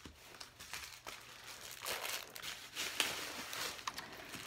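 Packaging crinkling and rustling in irregular spurts, with a few light clicks, as dropped items are picked up off the floor and handled.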